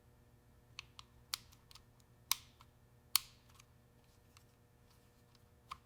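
A handful of sharp, light clicks and taps at irregular intervals, about nine in all, over a faint steady hum.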